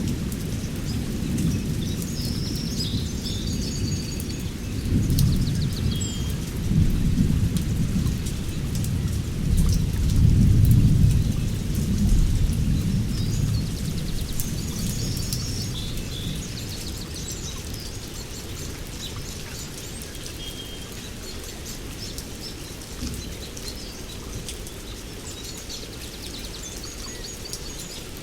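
Rain falling steadily with scattered drips, under a long roll of thunder that builds from about five seconds in, is loudest near the middle, then fades away. Birds chirp now and then over the rain.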